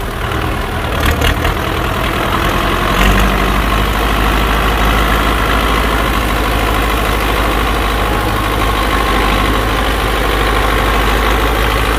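Diesel engine of a Belarus tractor running steadily as it tows a trailer loaded with rice sacks, its low note getting deeper and louder about three seconds in.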